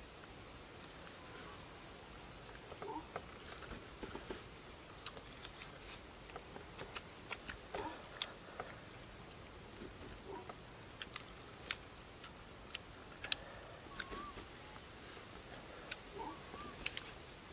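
Steady high-pitched insect buzzing, with scattered sharp clicks and crackles throughout and a couple of short warbling chirps near the end.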